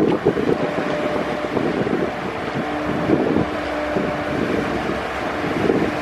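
Engines of an offshore crew transfer catamaran running as it moves past, a steady hum with several held tones, mixed with water rushing in its wake. Gusts of wind buffet the microphone.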